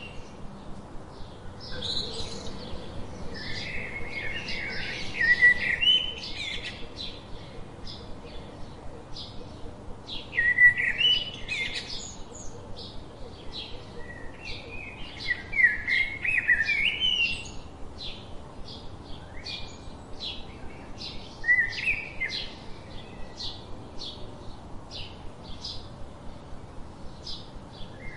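House sparrows chirping: a steady run of short cheeps, broken about five times by louder bursts of jumbled twittering chatter.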